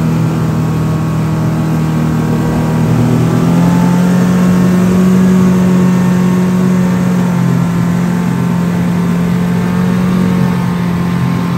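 Motor vehicle engine running steadily, its pitch rising a little about three to four seconds in and then holding.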